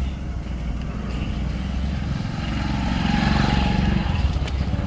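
An engine running steadily with a low pulsing rumble, growing louder for a moment about three seconds in.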